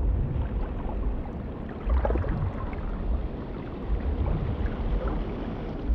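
Underwater ambience: a low, muffled rumble and wash of sea water, swelling a few times.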